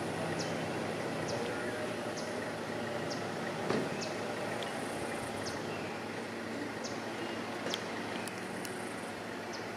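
Outdoor background: a steady low rumble and hum, with a short high chirp repeating roughly once a second.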